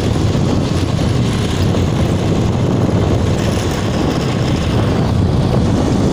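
Steady wind rush and road noise from riding on a motorised two-wheeler, heavy in the low end, with the engine's running sound underneath.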